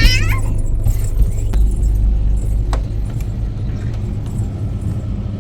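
Motor yacht under way, its engines running with a steady low rumble. A few sharp clicks or knocks sound over it.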